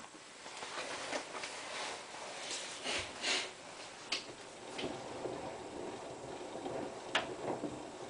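Hotpoint Ultima WT960 front-loading washing machine tumbling a small load through heavy suds: water and foam sloshing irregularly as the drum turns, with several louder swishes. The suds come from a deliberate overdose of detergent.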